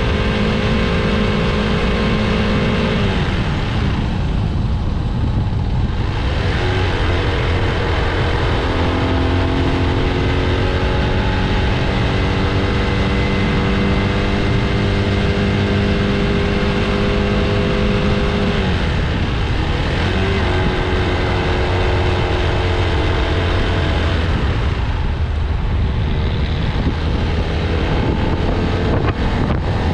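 A motorcycle engine running under way, its pitch holding, then dropping sharply about three seconds in and again about two-thirds of the way through, and climbing again after each drop as the speed changes.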